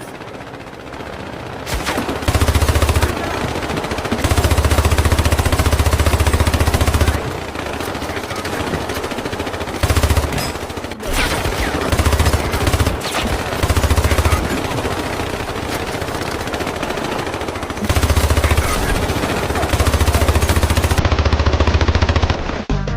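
Video game automatic gunfire: several long bursts of rapid fire with shorter bursts between them.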